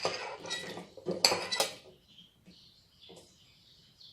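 A metal cooking pot and utensils clinking and clattering as chopped ginger and lemongrass are put into the pot of water, with several sharp clinks in the first two seconds.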